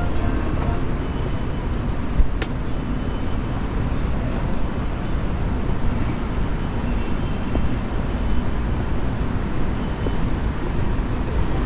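Steady city street ambience: distant traffic rumble and hiss, with a single short click about two seconds in.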